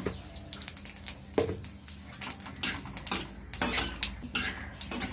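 A tempering of nigella seeds and dried red chillies sizzling in hot mustard oil in a wok. A metal spatula stirs them, scraping and knocking against the pan in short, irregular strokes.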